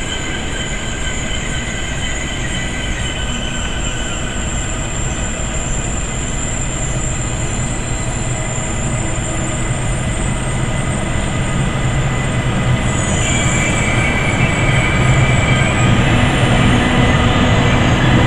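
Class 401 ICE (ICE 1) high-speed train creeping slowly past as it arrives, its rumble carrying thin steady high-pitched tones. In the last few seconds a low hum and a higher whine grow louder as the rear power car comes alongside.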